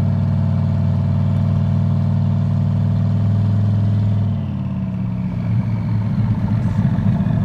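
Turbocharged truck engine running steadily under light throttle, then coming off throttle about four seconds in and dropping to a lower, uneven note as the truck slows; the owner says the idle is still struggling after his fuel system work.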